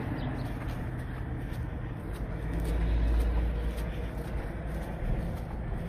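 Low vehicle rumble, like traffic passing, swelling about two seconds in and easing off again.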